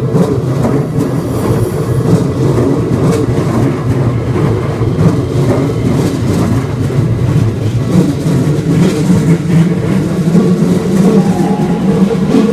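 Keikyu train running past on the rails, a loud, steady rumble of wheels and running gear.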